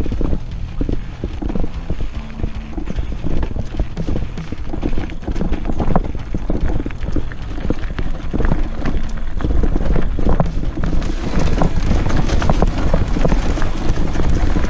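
Electric mountain bike riding over a rough dirt trail: a continuous stream of irregular knocks and rattles from the bike and its tyres over ruts and loose ground, over a low rumble. A brighter hiss joins about eleven seconds in.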